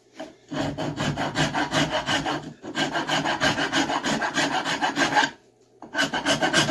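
Nicholson four-in-hand rasp filing a wooden axe handle in quick back-and-forth strokes, knocking a small lip off the handle's shoulder so that it tapers into the axe head. The strokes come in three runs separated by two brief pauses.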